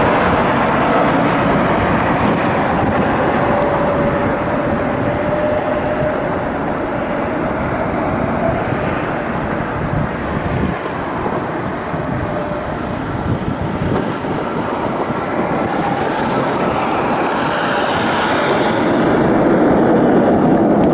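Jet aircraft engines rumbling steadily, with a high turbine whine swelling near the end.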